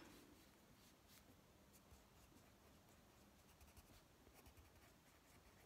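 Faint scratching of a Prismacolor cool grey coloured pencil shading on paper in short strokes.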